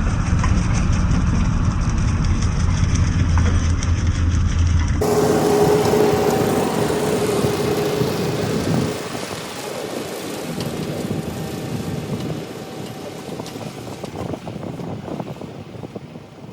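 Tractor engine running while mowing with a brush hog (rotary cutter). About five seconds in, the sound changes abruptly and a steady whine comes in. From about nine seconds it grows quieter, and quieter again near the end.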